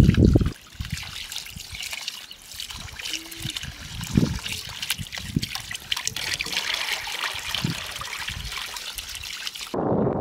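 A thin stream of water trickles from a hose pipe into a plastic bowl as rice is rinsed by hand, with small splashes and overflow dripping into a metal pot below. A low rumble fills the first moment, and a louder one starts abruptly near the end as the trickling stops.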